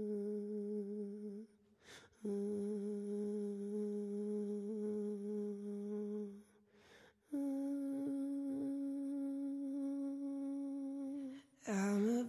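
Wordless hummed vocal from a song's intro: three long steady notes with short gaps between them, the third a little higher. Near the end a rising note leads into fuller music.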